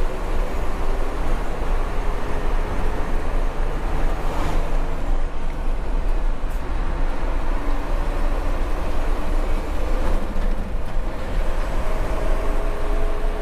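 Truck engine running with road noise as the truck drives along, a steady rumble whose pitch rises slowly near the start and again near the end. Two brief rushes of noise come about four and ten seconds in.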